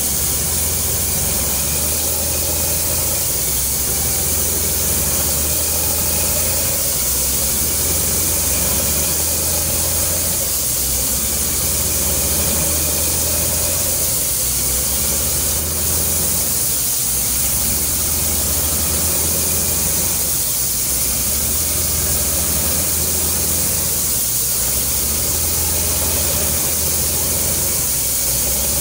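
Truck-mounted water well drilling rig (DTH cum rotary) running at work: a steady low engine drone with a constant hiss on top.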